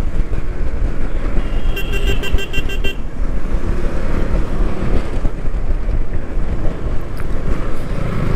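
Motorcycle on the move: a steady engine and wind rumble, with a vehicle horn beeping in quick pulses for about a second, about two seconds in.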